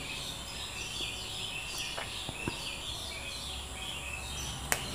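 Small birds chirping steadily, with a few faint clicks of a wire stripper working a wire about two seconds in.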